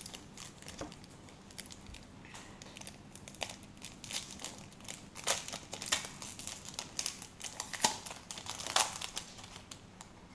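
Foil trading-card pack being torn open and its wrapper crinkled in the hands: a run of sharp crackles, loudest in the middle and later part.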